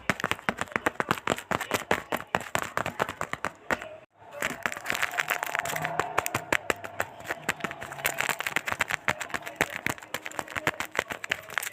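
Blind-bag packaging being crinkled and torn open: a dense run of sharp crackles, broken off briefly about four seconds in and then resuming.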